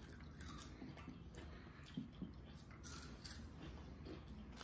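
Faint crunching and small clicks of someone chewing a crisp, chip-like snack.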